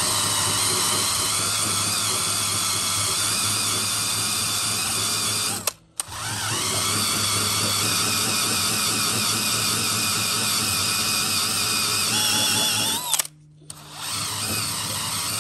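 DeWalt cordless drill spinning a de-striping eraser wheel against the foam adhesive on a truck's paint, run steadily at half to three-quarter throttle. It stops briefly about six seconds in. Near the end it speeds up, cuts out, then starts again.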